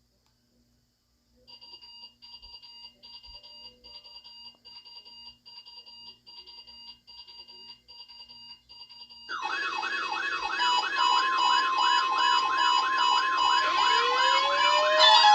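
Weather radio receivers alarming: first a faint, fast-repeating beep, then about nine seconds in several loud warbling siren-type alerts and a steady tone sound together. Another siren winds up in pitch near the end.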